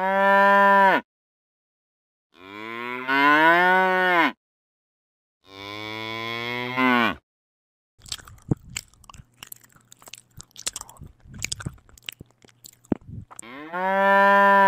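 Cow mooing four times: two long moos in the first seven seconds between shorter ones at the start and end. In the middle comes a stretch of irregular crunching and chewing as the cow eats grass.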